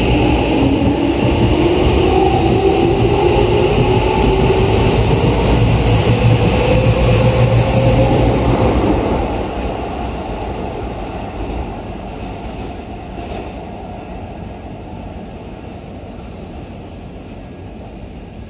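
Keikyu New 1000 series stainless-steel electric train pulling out. Its traction-motor whine rises steadily in pitch over a rumble as it accelerates for about nine seconds, then the sound fades as the train draws away.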